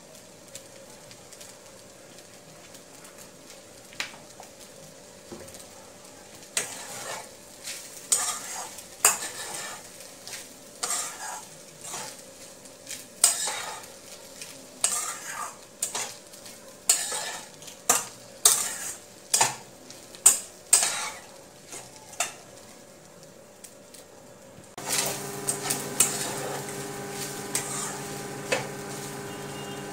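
A metal spatula scraping and clinking against a kadai as leftover rice is stir-fried, in a run of quick irregular strokes through the middle, over faint sizzling. Near the end a steady mechanical hum starts suddenly.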